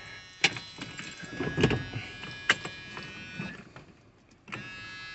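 Faint steady electric whine of the Dodge Ram van's fuel pump being powered, with several sharp clicks from the ignition key and switch; the 318 V8 does not crank or start. The whine stops about three and a half seconds in and comes back briefly near the end.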